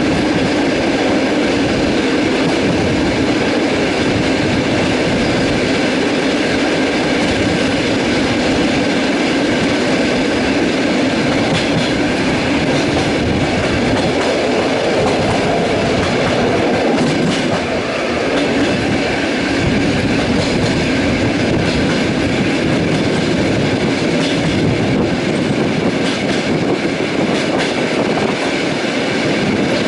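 Passenger train carriage running along the line: a steady rumble of wheels on rails with occasional clicks over the rail joints.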